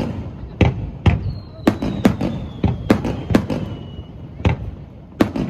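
Aerial fireworks bursting in quick, irregular succession, sharp bangs about two a second, with one long whistle falling slowly in pitch from about a second in to about four seconds.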